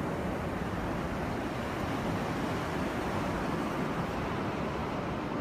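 Steady rushing of sea surf mixed with wind buffeting the phone's microphone.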